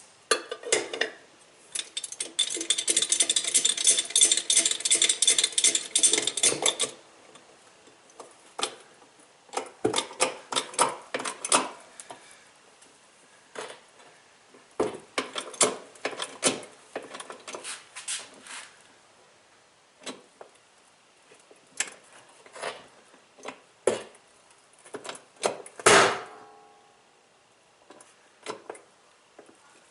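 Metal clanking and knocking as a bottle jack is worked to press the seized drive hub off a Maytag Centennial washer's transmission shaft, with a dense ringing metallic rattle from about two to seven seconds in. Near the end comes a single loud pop: the already failed transmission breaking apart under the jack's pressure.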